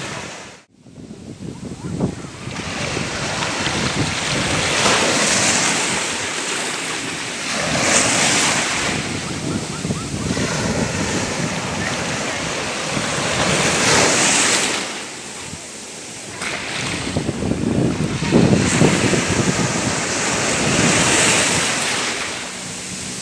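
Ocean waves breaking on a shore, a rushing surge that swells and falls back every few seconds. The sound drops out for a moment just under a second in.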